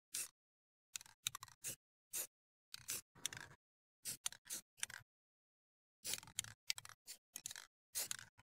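Aerosol spray-paint can spraying lighter OD green base coat onto a shotgun's magazine tube, faint and in many short bursts.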